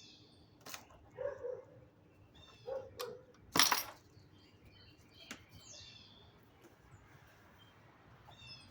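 A dog barking, a few barks in pairs and then one loud bark about three and a half seconds in, with birds chirping around it.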